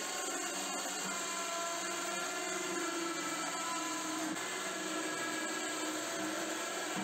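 Battery-powered electric winch motor running with a steady whine as it reels in its cable and lifts a homemade steel loader bucket on a mini tractor.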